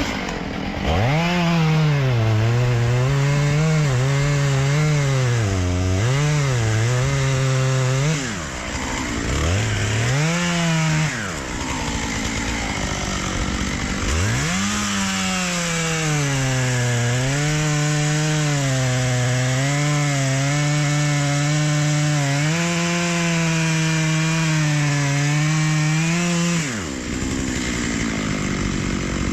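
Stihl 661 two-stroke chainsaw cutting into a tree trunk during a felling cut, its engine pitch wavering as the chain bites under load. It drops back to idle about eight seconds in and revs briefly around ten seconds. It cuts again from about fourteen seconds until it drops back near the end.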